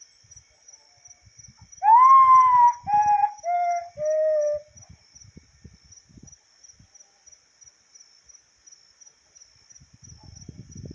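Common potoo (mãe-da-lua) singing its mournful whistled song: one long, loud note followed by three shorter notes, each lower than the last. A steady pulsing cricket trill runs underneath.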